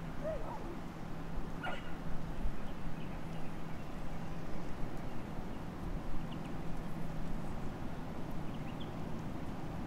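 Steady low background noise with a faint constant hum, broken by a few faint short chirps, one near the start and others about two seconds in and near the end.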